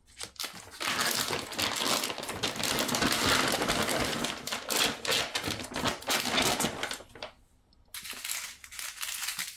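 Plastic zip-seal vacuum storage bag being pulled open and handled: dense crackling and crinkling of the plastic with fine clicks from the zip track, stopping briefly about seven seconds in before starting again.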